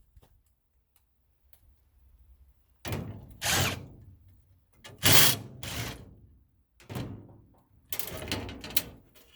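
Sheet-metal furnace parts being handled and knocked about: four or five separate bursts of scraping and clunking, each about a second long, spread over the last two thirds, after a quiet start.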